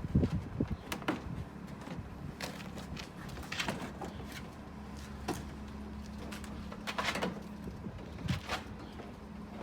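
Scattered clicks and knocks of plastic bumper panels and trim clips being handled and pulled during front bumper removal, over a steady low hum.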